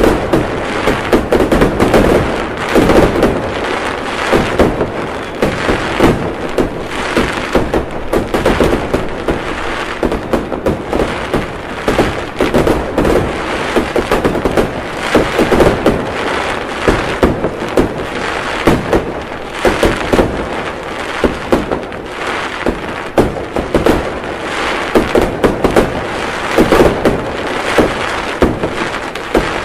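Fireworks going off without a break: many sharp cracks and bangs every second, overlapping into a continuous crackle.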